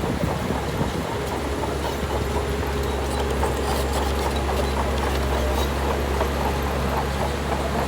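Shantui bulldozer's diesel engine running steadily under work, with irregular clanking over the engine hum.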